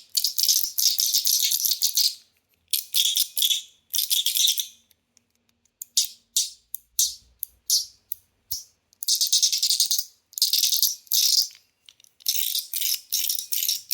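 Stonewashed titanium buckyball slider fidget worked back and forth: the slider and its ball clicking and rattling along the track in repeated short bursts, with brief pauses and a run of separate clicks in the middle.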